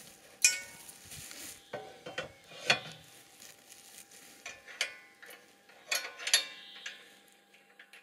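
Steel square-tube arm and locking pin of a cantilever sawhorse clanking as they are handled and fitted to a timber trailer: sharp, scattered metallic knocks, each ringing briefly, the loudest about half a second in and just under three seconds in.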